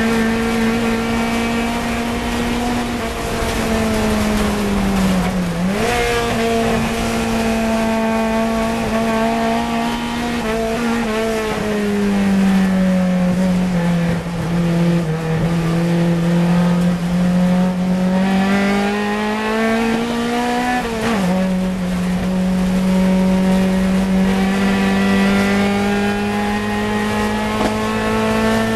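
Fiat 124 Coupe race car's engine, heard inside the cabin, running hard at high revs. The revs dip briefly about five seconds in, then fall slowly as it brakes for a slow corner. They climb again under acceleration out of it, drop suddenly at an upshift about two-thirds through, and rise steadily after that.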